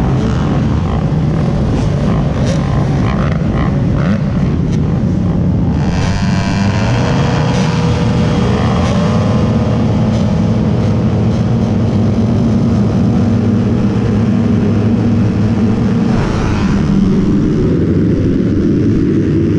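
Motocross dirt bike engine running hard, its pitch rising and falling as it revs, with rushing wind noise.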